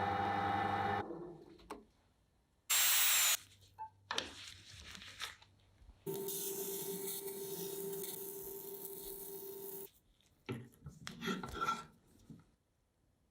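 A run of short workshop tool sounds: a brief loud noisy burst, then a power tool running steadily for about four seconds, then a few rubbing or scraping noises near the end.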